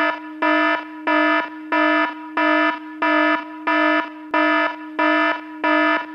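Electronic countdown-timer alarm going off at zero: buzzy beeps repeating about one and a half times a second over a continuous lower tone.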